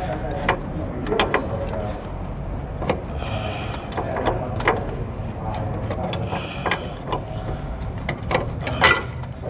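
Metal hand tools clicking and scraping on a GM steering box's adjuster screw and jam nut as an Allen key and wrench are worked. The clicks come irregularly, with two short ratchety runs of rapid clicking.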